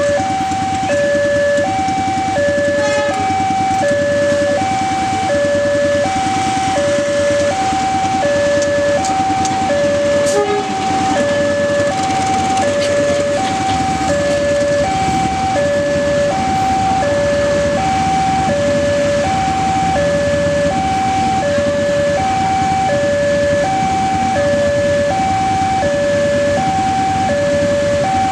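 Railway level-crossing alarm ringing a two-tone ding-dong: a high and a low tone alternating evenly, about one pair a second. Underneath it runs a low rumble as a passenger train passes over the crossing.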